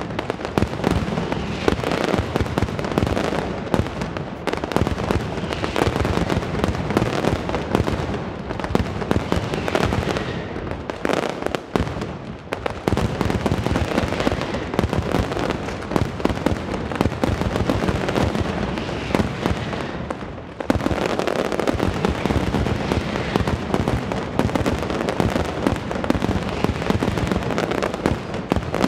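Mascletà firecrackers: strings of firecrackers hung on wires going off in a dense, continuous rattle of bangs, with brief lulls about 11 and 20 seconds in.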